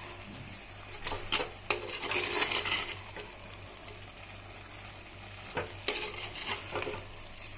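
A steel spoon stirring and scraping chunks of chicken around a clay pot, with the food sizzling softly underneath. The scraping comes in bunches about a second in and again near the end, with a quieter pause in the middle.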